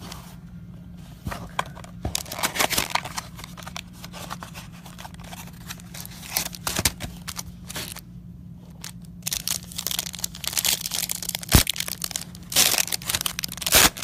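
Plastic wrapping on a trading card pack torn open and crinkled by hand, in bursts of crackling with a sharp snap about two-thirds of the way through. A steady low electrical hum runs underneath.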